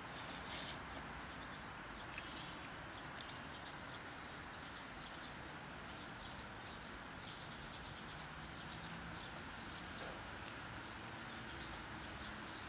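Cats crunching dry kibble from a plastic tub: a steady patter of small, irregular crunches. A thin, steady high-pitched whine sounds for several seconds through the middle.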